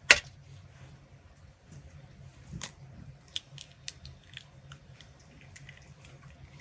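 An egg being cracked open by hand: one sharp knock near the start, a softer knock a couple of seconds later, then a quick run of small crisp clicks as the shell is broken apart.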